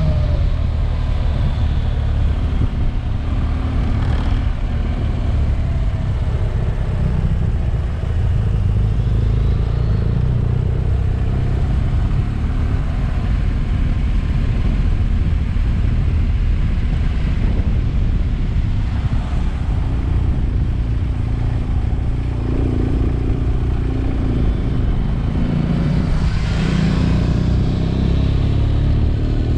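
Motorcycle engine running steadily under way, a continuous low drone with steady road and wind noise.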